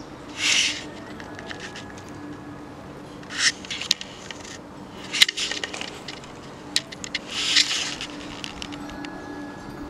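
Short scraping rustles a few seconds apart, three in all, with scattered sharp clicks, from a person on the move with a handheld camera.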